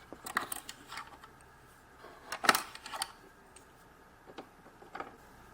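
A few light plastic clicks and taps from handling a toy electronic cash register and its play pieces. The loudest click comes about two and a half seconds in.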